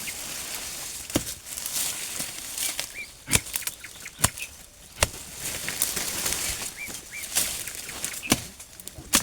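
Rustling and crackling of leaves and stalks, broken by about six sharp knocks at irregular intervals, with a few short, faint bird chirps.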